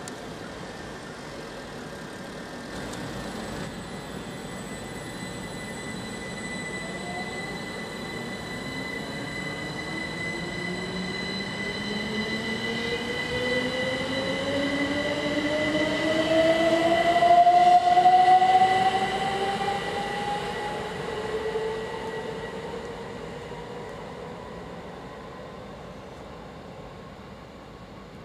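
Electric multiple unit pulling out, its traction motors whining in a steadily rising pitch as it accelerates away. It grows loudest a little past halfway, then fades, over a steady high-pitched tone.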